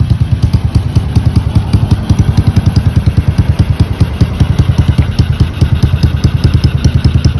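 Honda CGL 125's single-cylinder four-stroke engine idling steadily, with a fast, even exhaust beat of about ten pulses a second.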